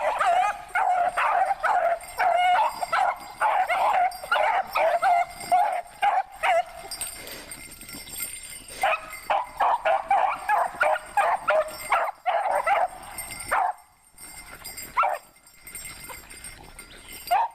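A pack of beagles giving tongue on a rabbit's trail: many short, overlapping baying calls, dense for the first half, a brief lull, then a second run that thins out near the end.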